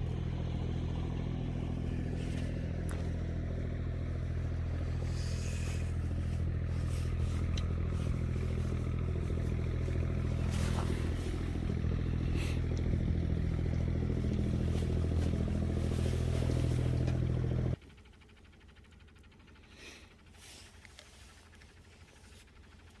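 An engine running steadily at an even idle, cutting off suddenly near the end, followed by a much quieter background, with a few faint clicks over the hum.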